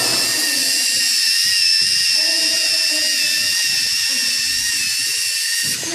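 LEGO Mindstorms EV3 robot's small electric motors and plastic gear trains whining steadily as it drives on its tracks, the pitch wavering slightly with load, cutting off near the end.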